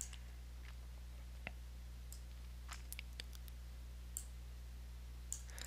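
Scattered, irregular faint clicks of a computer mouse over a steady low electrical hum.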